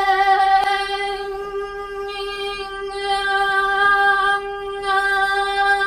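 A young woman's voice holding one long sung note at a steady pitch, its loudness dipping a little in the middle.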